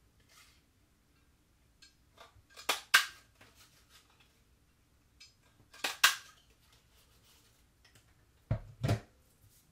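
Stampin' Up! butterfly lever punch, held upside down, cutting shapes out of cardstock: three crisp snaps about three seconds apart, each a quick double click as the punch presses through and springs back. The last also has a dull knock.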